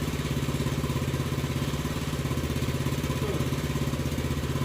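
1979 Honda CT90's small single-cylinder four-stroke engine idling steadily on an aftermarket Chinese carburetor that has just been tuned, now running a little better.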